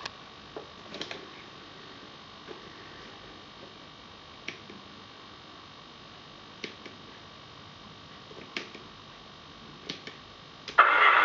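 Faint scattered clicks over a thin steady electrical hum, then near the end the RC model truck's onboard sound module comes on abruptly and loudly with truck engine sound.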